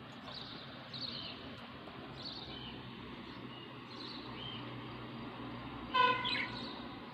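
Small pet birds chirping, short high chirps about once a second over a steady low hum. About six seconds in comes a brief, loud horn-like toot, followed by a quick rising chirp.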